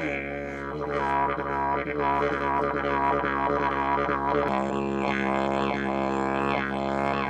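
Background music: one steady low droning note, rich in overtones. About halfway through the tone changes and the overtones sweep up and down in a wah-like way.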